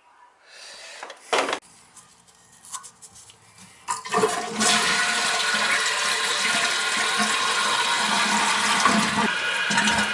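A few short knocks, then about four seconds in a toilet is flushed and water rushes steadily out of the tank into the bowl. This is a test flush, checking the newly replaced tank-to-bowl bolts for leaks.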